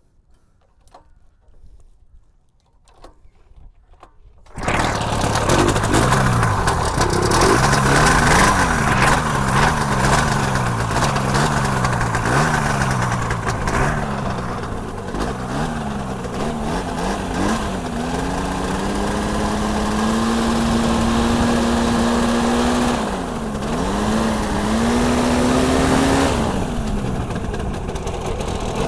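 Paramotor's two-stroke engine catching abruptly about four seconds in, after a few faint clicks, then running and warming up with uneven revs that swing up and down. Later it holds a steadier, slowly rising note with two brief dips.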